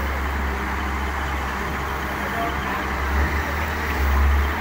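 Hitachi wheeled excavator's diesel engine running steadily while the machine works its arm, with a constant low hum.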